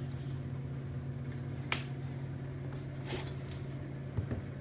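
Light handling clicks and knocks as a metal cake pan is lifted out of an Instant Pot on a silicone sling and set down, with one sharper click about two seconds in, over a low steady hum.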